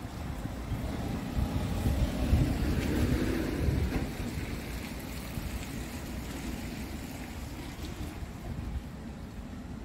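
Wind buffeting the microphone: an uneven, gusty low rumble that is strongest in the first four seconds and then eases off.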